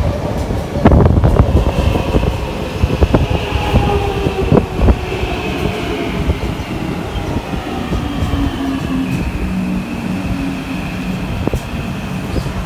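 Kawasaki C151 metro train with Toshiba permanent-magnet synchronous traction motors pulling in and braking: its motor whine falls slowly in pitch as it slows. Sharp wheel clicks and knocks come mostly in the first few seconds, and a steadier low hum takes over near the end.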